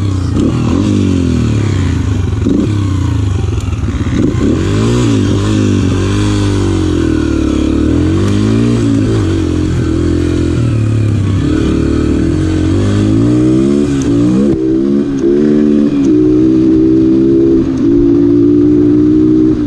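Yamaha TT-R125 dirt bike's four-stroke single-cylinder engine under way, its pitch climbing and dropping again and again as it is run up through the gears, then holding a higher, steadier note near the end.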